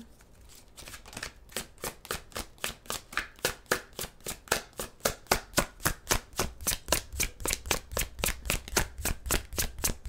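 A tarot deck being shuffled by hand: a steady run of card slaps about five a second, starting about a second in.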